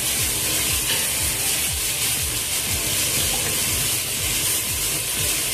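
Onions and whole spices sizzling steadily in hot olive oil in a stainless steel pot, stirred and scraped around with a wooden spatula.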